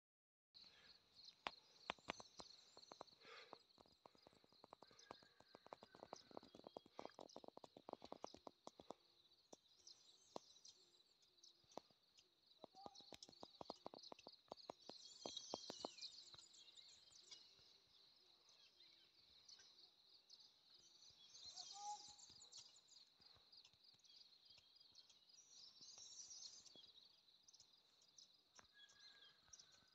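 Faint rural outdoor ambience: a steady high-pitched insect drone throughout, with scattered light clicks and taps and a few faint bird chirps.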